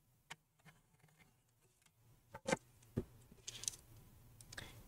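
A few faint clicks and knocks of parts and cables being handled inside an open steel desktop PC case. The sharpest come in the middle, with softer rustling ticks near the end.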